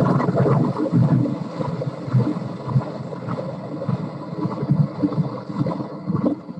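Recording of underwater shipping noise, mainly a ship's propeller cavitating as it turns. It is a steady low rushing noise with many irregular crackling pops.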